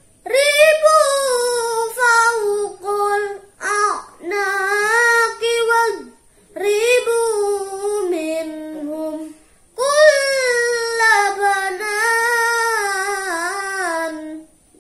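A boy's voice chanting melodic Quran recitation (tilawah) in long, ornamented phrases, with short pauses for breath between them.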